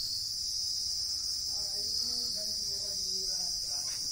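Insects chirring in a steady, high-pitched drone.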